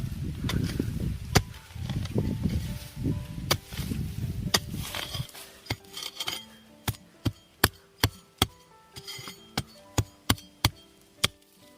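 Hoe digging for winter bamboo shoots: knocks into soil with a rumble of handling noise. About five seconds in the rumble stops, leaving a run of sharp knocks, two or three a second, over soft background music.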